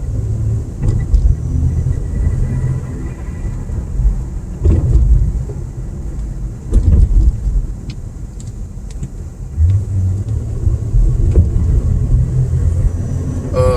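Steady low road and engine rumble inside a moving car, with a few short knocks about one, five and seven seconds in. The owner blames the car's bumping and rattling on a worn right strut.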